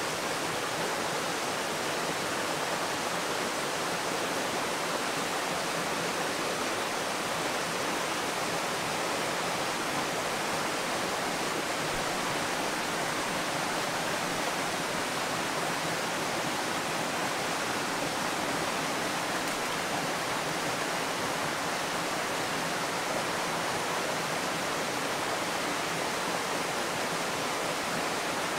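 Steady, even rushing noise with no distinct events, of the kind flowing water or wind in foliage gives.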